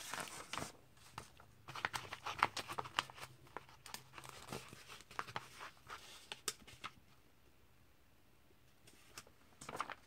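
Glossy comic-book pages rustling and crinkling as they are turned and flattened by hand, with small crackling clicks. It comes briefly at the start, then for about five seconds from about two seconds in, and again near the end.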